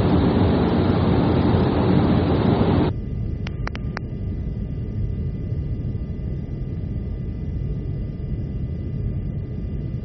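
In-flight aircraft interior noise. A loud steady rushing drone cuts off abruptly about three seconds in. It is replaced by a quieter low rumble with a faint steady hum, and three short clicks come soon after the change.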